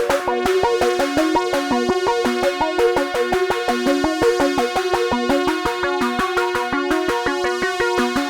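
AEModular modular synthesizer playing an electronic patch: a stepping sequence of sawtooth notes through a filter, a pad holding two melodies, and a fast, even hi-hat tick.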